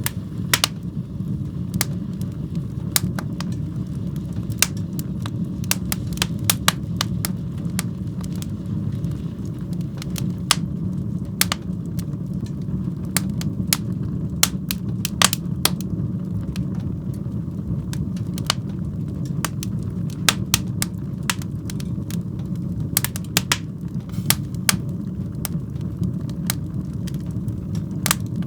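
Wood fire burning in a fireplace: a steady low roar of the flames with frequent irregular sharp crackles and pops from the burning wood.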